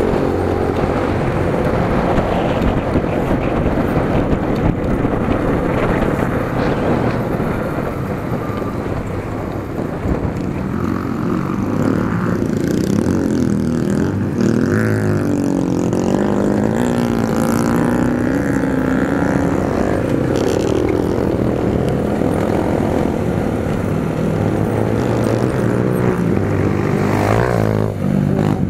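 Dirt bike engine running at low riding speed, its pitch rising and falling with the throttle.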